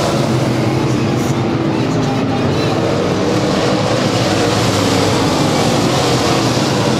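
Dirt-track race cars' engines running hard as a pack laps the oval, a loud steady mix of engine notes wavering slightly in pitch as cars pass.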